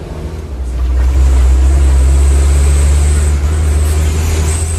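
Truck engine heard from inside the cab while driving. It is a heavy low drone that gets louder about a second in as the engine pulls, holds, and eases off shortly before the end, with a faint high whine over it.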